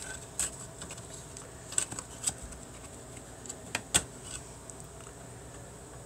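Handling noise from a small plastic PSU cooling fan and its wires being fitted back into a power supply: a few scattered sharp clicks and taps, the strongest about two and four seconds in.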